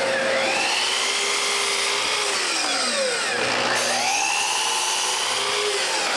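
Woodworking power tool running and cutting wood, its motor note sagging under load and picking back up about twice.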